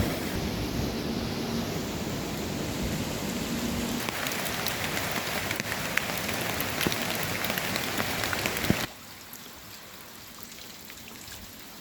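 Rain falling: a steady hiss with individual drops ticking. About nine seconds in it drops abruptly to a quieter spell of scattered drips.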